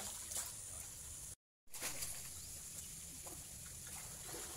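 Light water splashes as a hooked fish is brought to the landing net, over a steady outdoor hiss. The sound cuts out completely for a moment about a second and a half in.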